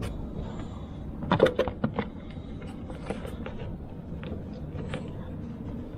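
Plastic interior car trim being pried and worked by hand, giving a cluster of sharp clicks and knocks about a second and a half in, then scattered single ticks, over a steady low hum.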